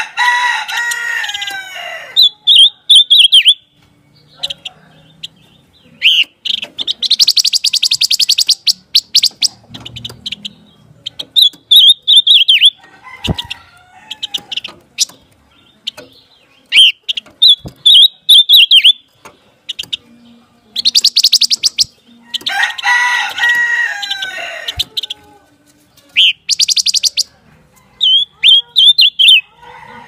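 Silver-eared mesia (pancawarna) calling: bursts of short, high whistled notes alternating with fast dry trills. Twice a harsher, drawn-out call about two seconds long, falling at its end, breaks in.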